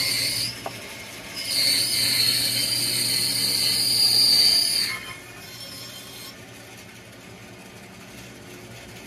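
Bandsaw cutting a circle out of a wood board on a pivot-nail circle jig, the blade making a loud, steady high-pitched cutting whine with a brief dip about half a second in. About five seconds in the cutting noise stops abruptly and the saw runs on much more quietly.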